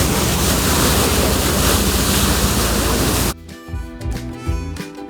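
A loud, steady rush of waves and wind, with wind buffeting the microphone. A little over three seconds in it cuts off abruptly and harmonica-led music begins.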